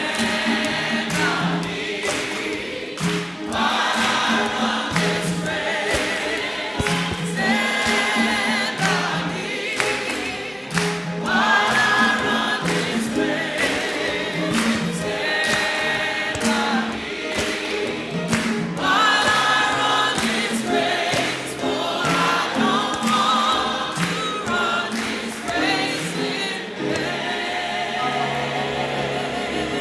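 Choir singing a hymn, sung phrases rising and falling over low held notes.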